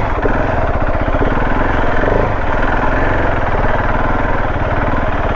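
Motorcycle engine running steadily, with a rapid, even pulse.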